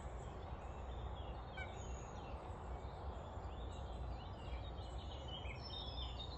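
Birds chirping and calling, many short notes from several birds, over a faint steady low rumble.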